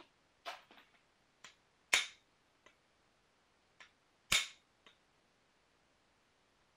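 Flintknapping: sharp strikes of a knapping tool on a piece of Rainy Buttes stone, two loud ones about two and a half seconds apart, with lighter taps and clicks in between.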